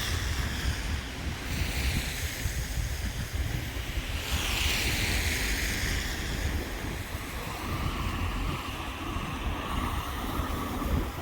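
Wind buffeting the phone's microphone in a steady low rumble, with an even rushing hiss that swells about four seconds in.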